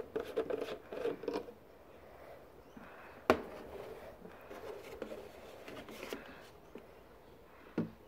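Irregular rubbing and scraping handling noises with scattered light clicks, and one sharp click a little over three seconds in.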